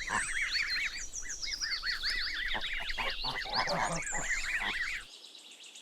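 Goslings peeping: a quick run of many short, high, arched peeps overlapping one another. The calls break off about five seconds in.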